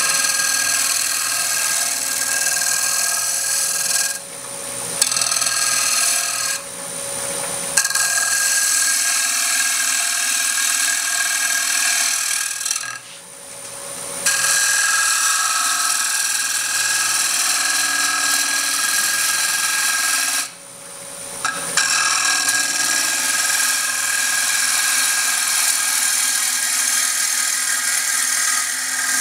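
A bowl gouge cutting the inside of a spinning walnut bowl on a wood lathe: a steady scraping, shaving noise of the tool edge on the wood. It drops away briefly four times as the tool is lifted off and set back into the cut.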